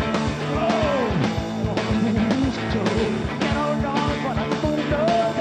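Live band playing loud, fast blues-rock: drum kit with crashing cymbals, distorted electric guitar, and high notes that slide up and down over the beat.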